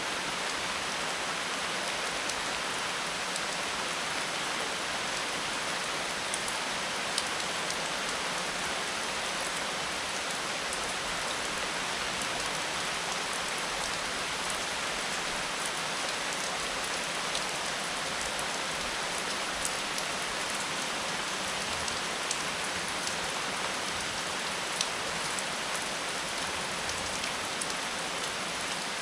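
Steady rain falling, an even hiss with scattered faint drop ticks on a surface.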